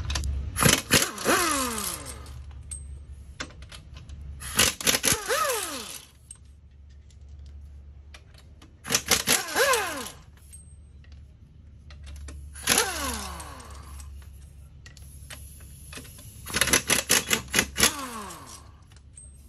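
Pneumatic impact wrench hammering lug nuts loose to take a wheel off, in five separate bursts, one per nut. Each burst is a rapid rattle that ends in a falling whine as the tool spins down.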